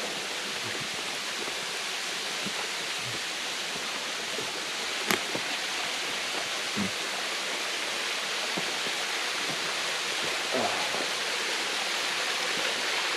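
Rushing water of a creek waterfall, a steady hiss that grows slightly louder, with a sharp click about five seconds in.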